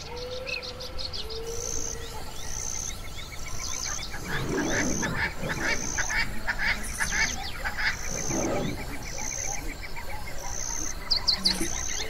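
Savanna wildlife chorus: birds and insects calling, with a short high chirp repeating about once a second over a fast, steady trill. Two louder, deeper animal calls come about 4 and 8 seconds in.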